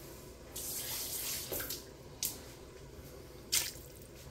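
Chicken broth poured from a bowl into the pressure cooker's inner pot: a splashing pour for about a second, then two short sharp drips near the end of the pour.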